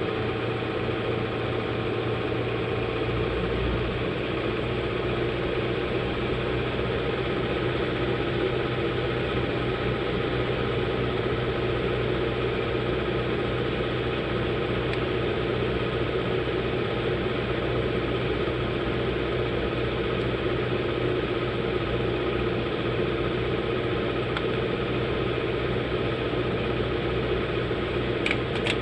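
Steady hum and rush of a small electric motor-driven blower running at a constant speed, with a couple of faint clicks near the end.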